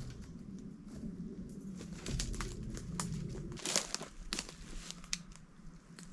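Brush being chopped out and cleared by hand: leaves and stems rustling and crunching, with sharp snaps at irregular intervals.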